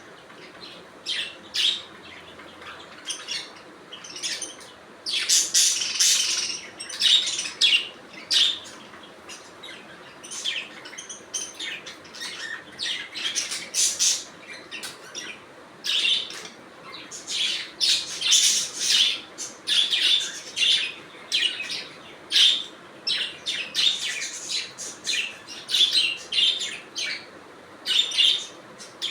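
Budgerigars chirping and chattering, many short high calls overlapping in quick succession with no real pauses.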